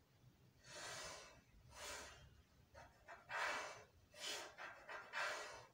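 Pencil drawing along a clear plastic curve ruler on pattern paper: a run of short strokes, about one a second, the first coming about half a second in.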